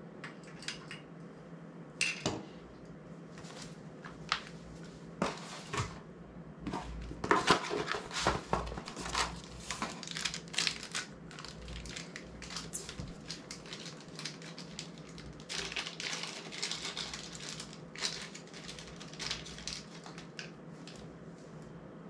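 Irregular clicks, taps and scrapes of small camera quick-release parts being handled, fitted together and set down on the floor, busiest from about a third of the way in.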